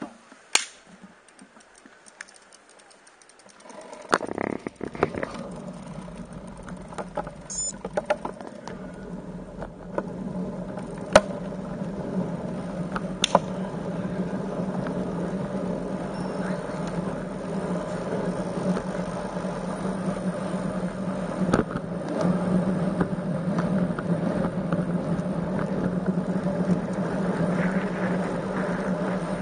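Steady rushing and humming of a moving road bicycle ride, with wind and road noise on the microphone, starting about four seconds in and slowly growing louder; a few clicks before it.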